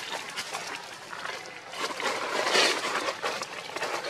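Rustling and light crackling, as of dry leaf litter, with many small clicks and a louder rustle about two seconds in. No monkey calls are heard.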